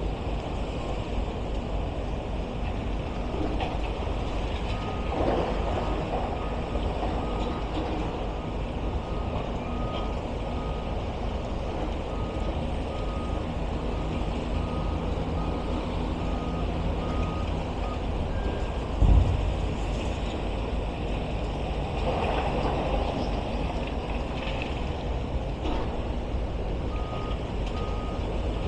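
Heavy demolition plant running with a steady low rumble while a reversing alarm beeps in an even rhythm, stops, and starts again near the end. A single heavy thud, the loudest sound, comes about two-thirds of the way through.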